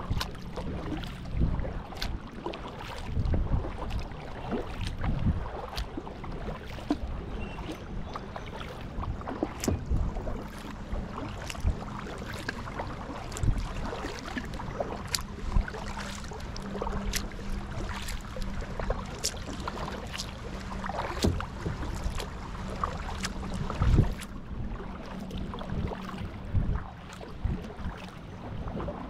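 Kayak paddle strokes: the blades dip and splash through river water, with dripping and irregular small knocks and splashes.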